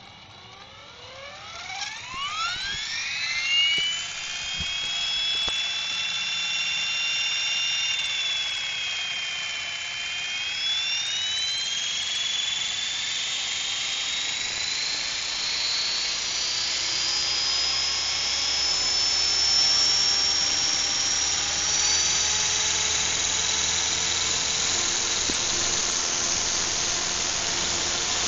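Radio-controlled model helicopter spooling up: a high whine from the motor and gears climbs steeply in the first few seconds, dips briefly about ten seconds in, then rises slowly higher as the rotor gains speed, over a steady rush of rotor wash.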